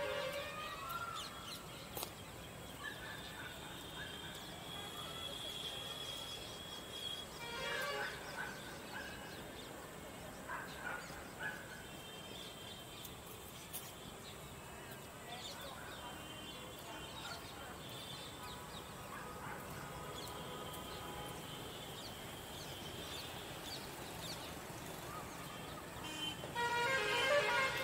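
Open-air ambience of birds calling on and off, with distant vehicle horns. Near the end comes a louder, longer pulsed call.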